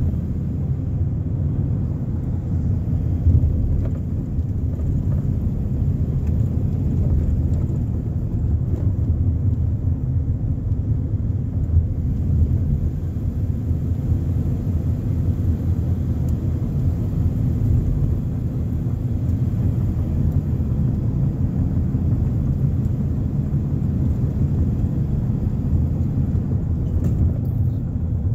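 Steady low rumble of a car's engine and tyres on the road, heard inside the cabin while driving at a steady pace.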